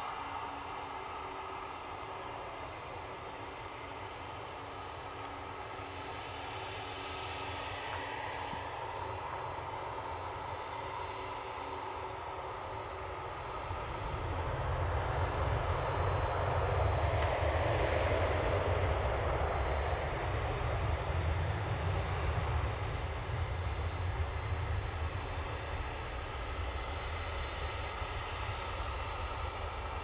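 Jet airliner engines: a steady high whine throughout, with a low rumble that swells about halfway through and eases off toward the end.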